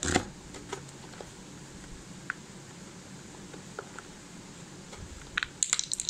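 Plastic fan blade being fitted onto a table fan's motor shaft: a sharp click as it goes on, a few light ticks, then a quick run of clicks near the end.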